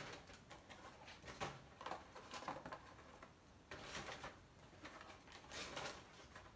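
Faint, scattered rustling and scraping of small cardboard nugget boxes and a paper bag being handled and opened.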